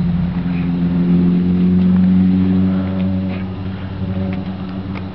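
A low engine hum that swells to its loudest about two seconds in and then fades away, like a motor vehicle passing, with a few faint ticks over it.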